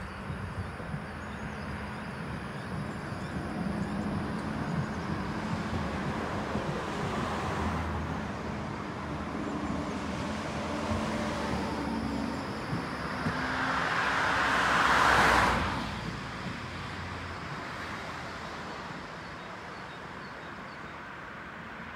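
Street traffic with a steady low hum. A vehicle passes close, growing louder to a peak about fifteen seconds in, then drops away suddenly.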